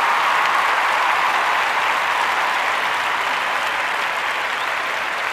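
Applause, an even clatter that slowly fades.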